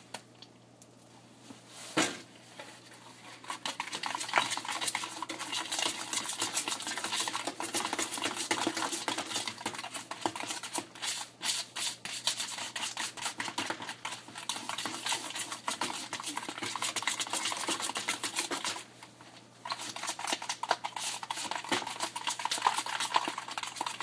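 A spoon stirring a thick sauce in a bowl: fast, continuous scraping and clinking against the bowl, stopping briefly about three-quarters of the way through and then starting again. One sharp knock comes about two seconds in, before the stirring begins.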